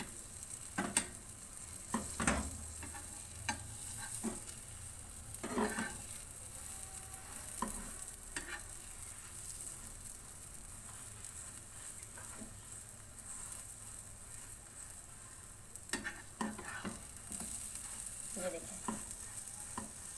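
Cheese omelette frying in oil in a frying pan on a low flame, with a steady sizzle. Now and then the pan gives a short scrape or tap as the omelette is folded.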